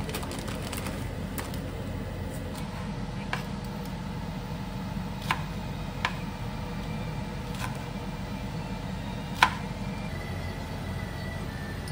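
Chef's knife chopping okra on a plastic cutting board: a handful of sharp, single chops a second or two apart, the loudest about nine and a half seconds in, over a steady low hum.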